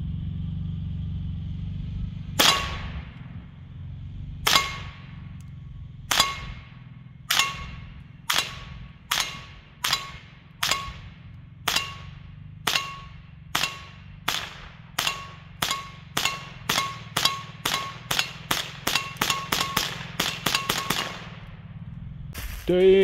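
Kel-Tec CMR-30 rifle in .22 WMR firing a long string of about 26 shots at a gas cylinder, slow at first and then speeding up to about three shots a second. Each hit on the metal cylinder leaves a short clanging ring.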